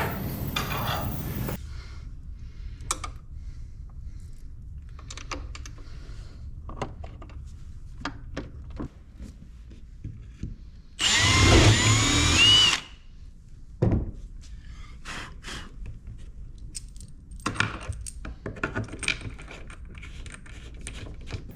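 A power drill-driver runs for about two seconds midway, its pitch wavering as it drives a bolt into a bracket. Scattered clicks and knocks of parts and tools being handled come before and after it.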